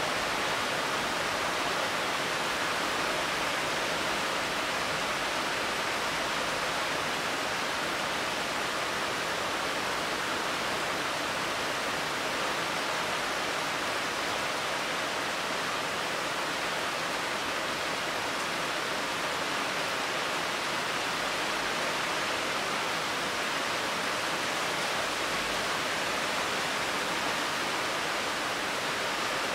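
Steady summer rain falling on the leaves of garden trees: an even, unbroken hiss.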